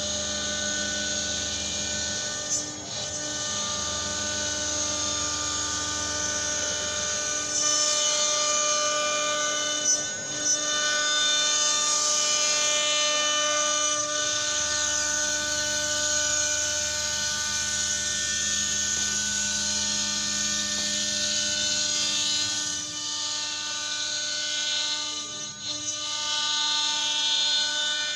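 CNC cutting machine running, its motors giving several steady whines that shift in pitch every few seconds as the moves change, over a steady high hiss.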